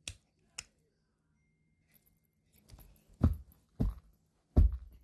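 Two light clicks, then a run of four or five heavier knocks and thumps, about half a second apart, in the second half.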